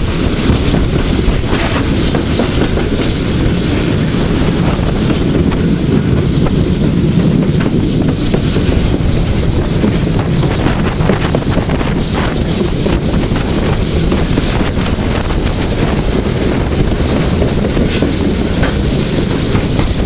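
PKP Ol49 steam locomotive running and picking up speed, heard from the side of its cab. Steady rushing wind buffets the microphone over the engine's running noise.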